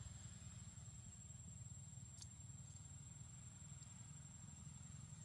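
Near silence: a steady low rumble and a thin high whine of background noise, with one faint click about two seconds in.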